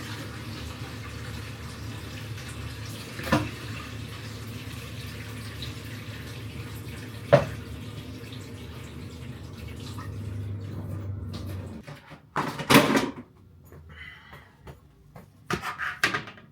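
Kitchen tap running steadily into the sink as raw chicken is rinsed, with a couple of sharp knocks. The water stops about twelve seconds in, followed by a louder clatter and a few smaller knocks.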